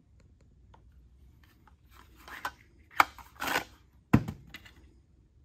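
Handling noise from unpacking a mini chainsaw and its foam-lined box: rustling and scraping, with a sharp click about three seconds in and a heavier knock about a second later.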